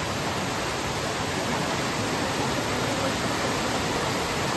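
Small mountain stream rushing over rocks: a steady, even rush of water.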